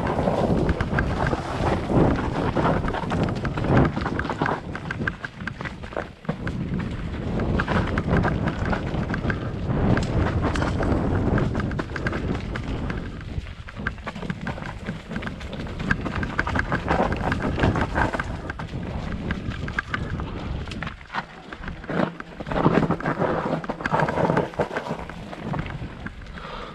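Mountain bike ridden fast down a dirt forest trail: tyres rolling over dirt, leaves and roots, with constant knocks and rattles from the bike and a low rumble of wind on the camera microphone.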